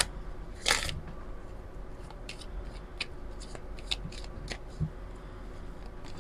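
A deck of oracle cards being shuffled by hand. A brief rush of sliding cards comes about half a second in, then scattered light flicks and taps of cards.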